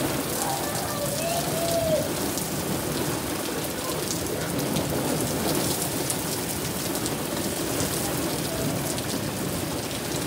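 Heavy thunderstorm rain pouring steadily, with a dense patter of individual drops ticking on nearby surfaces.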